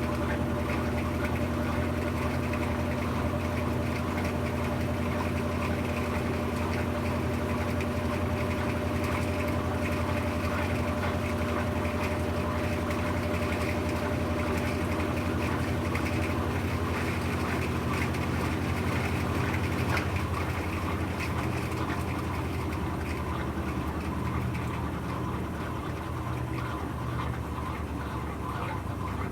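Brastemp BWK17 17 kg washing machine running mid-cycle: a steady motor hum with water sounds. Its steady tones cut out about 16 and 20 seconds in, and the machine runs a little quieter after that.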